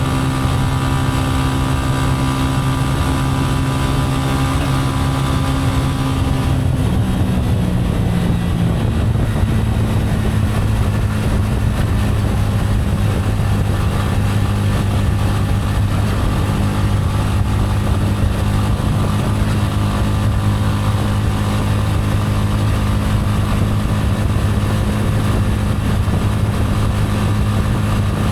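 Gilera AC4 motorcycle's single-cylinder four-stroke engine running while riding, heard from the bike. Its engine note shifts about seven seconds in, then holds steady.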